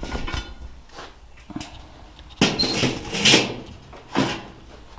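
Lit charcoal briquettes tipped from a metal chimney starter, clattering and scraping onto the lid of a cast-iron Dutch oven, with knocks of the chimney. It comes as a string of short clatters, with a longer, louder scraping clatter about two and a half to three and a half seconds in.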